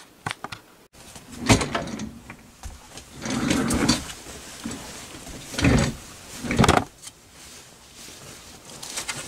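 Electric sewing machine stitching in four short stop-start bursts, the longest just under a second.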